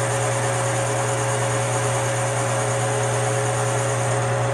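Metal lathe running at a steady speed, its four-jaw chuck spinning: a constant motor hum with an even whirring noise over it.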